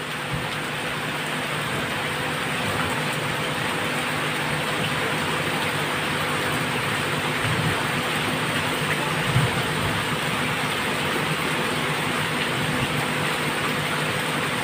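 Steady rushing of water, heavy rain or an aquarium's water flow, with a faint steady hum under it and one brief louder knock about nine seconds in.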